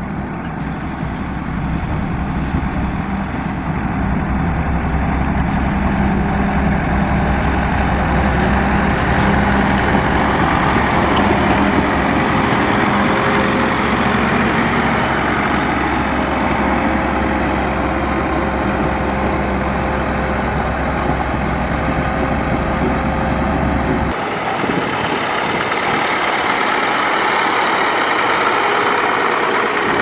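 Dresser motor grader's diesel engine running with a steady, heavy drone. The deep low rumble drops away abruptly about three-quarters of the way through, while the engine noise carries on.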